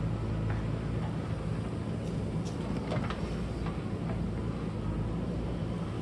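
JCB backhoe loader's diesel engine running steadily as it works, with a few short, light knocks scattered through.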